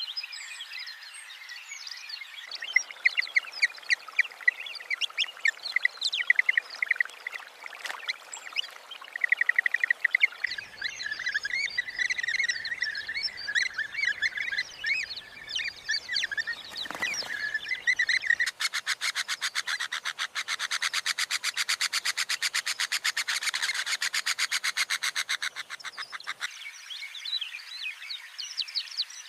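Wetland ambience of many birds chirping and calling over one another. About two-thirds of the way in, a fast, evenly pulsed rattling trill takes over for about eight seconds before the chirping returns.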